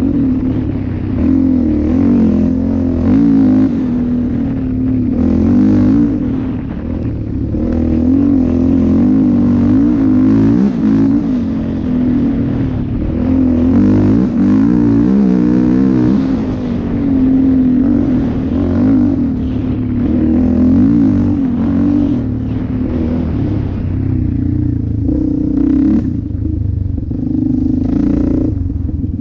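Yamaha Raptor 700R ATV's single-cylinder four-stroke engine running under way, its pitch rising and falling constantly as the throttle is worked. A few sharp knocks come near the end.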